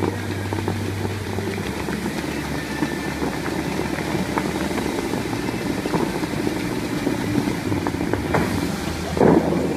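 Bellagio fountain water jets spraying into the lake: a steady rush of water with a low rumble beneath it. Near the end comes a brief louder burst.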